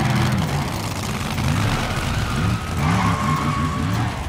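Monster truck engine sound effect revving up and down, a deep engine note rising and falling in a run of quick revs through the middle.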